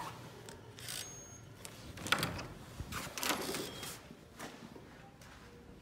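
A wooden door being opened by its handle, with a few short clicks and rustles about a second apart as someone goes through.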